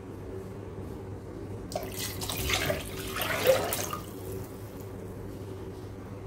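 Coconut milk poured in a thin stream into a stainless-steel pressure cooker pot of frothy liquid, splashing loudest from about two to four seconds in. A steady low hum runs underneath.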